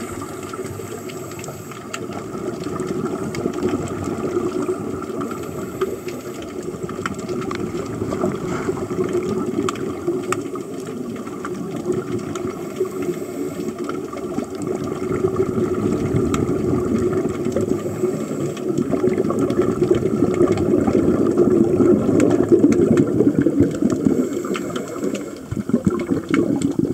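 Underwater rush of scuba air bubbles from the divers' regulators and the air fed into a lift bag, a steady bubbling hiss with scattered clicks that grows louder in the second half.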